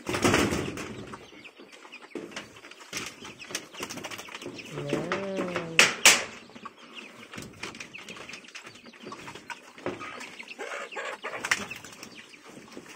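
A group of weaner piglets eating from a feed pan: busy, irregular clattering and clicking of snouts and feed against the pan, with a sharp knock about six seconds in.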